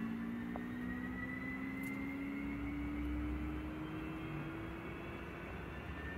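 Boeing 727's auxiliary power unit cranking and spooling up during its start, a steady whine climbing slowly in pitch over a low rumble.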